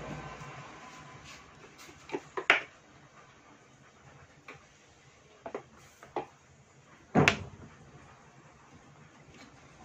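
A few short knocks and clicks of tools and objects being picked up and set down on a workbench: a quick cluster about two seconds in, a few lighter ones after, and the loudest about seven seconds in.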